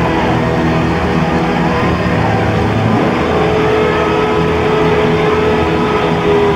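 Hard rock band playing live and loud: distorted electric guitars, bass and drums, with a guitar note held through the second half.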